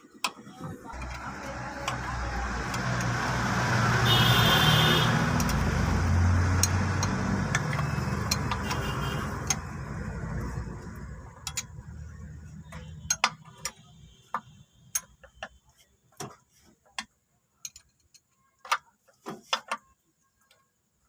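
A motor vehicle passes by, its engine sound swelling over the first few seconds and fading away by about thirteen seconds in. After it, scattered sharp metallic clicks and taps of hand tools.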